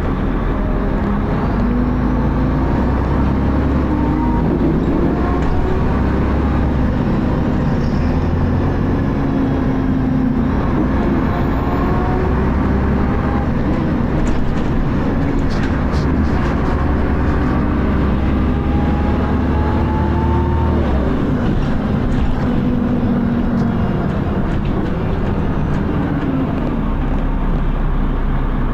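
Dennis Arrow bus's diesel engine running hard together with the whine of its ZF automatic gearbox. The pitch climbs and falls back several times as the bus accelerates and changes gear.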